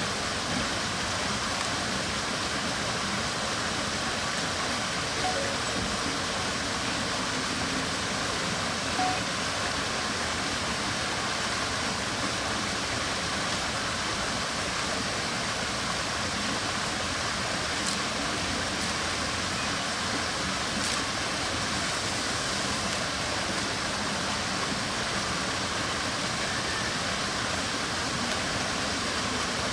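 Steady, even rushing noise like running water, with a few faint clicks.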